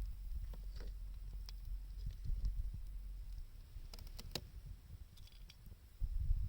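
Wood bonfire crackling with scattered sharp pops, the loudest two about four seconds in, over a low rumble of blizzard wind on the microphone.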